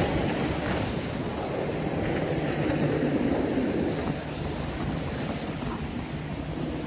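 Several jet skis running at speed across the water, a steady engine drone that slowly gets quieter, mixed with waves washing against rocks and wind on the microphone.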